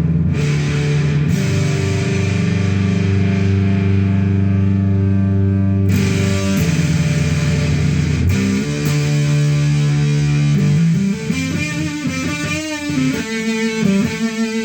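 Kiesel electric guitar with humbucker pickups played through a homemade distortion/fuzz pedal built from a Fisher-Price cassette player's amplifier circuit: distorted chords held for several seconds each, changing about six and eight seconds in, then notes with a wavering, bending pitch near the end.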